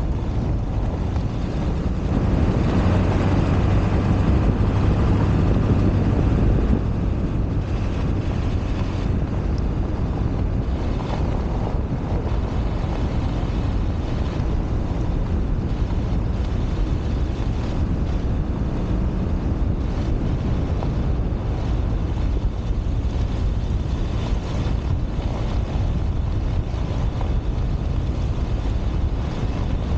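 1999 Ford F-250 pickup driving on a dirt road in four-wheel drive: a steady engine hum and tyre noise on gravel, with wind rushing over a microphone mounted outside the truck. The engine is louder for a few seconds near the start, then settles to a steady level.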